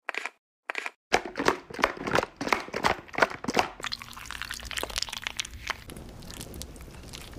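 A thin plastic bottle of egg-and-flour batter crackling and crinkling in quick, sharp strokes as it is handled and shaken. From about four seconds in, a steadier crinkling runs as the bottle is squeezed to pipe batter into a pan.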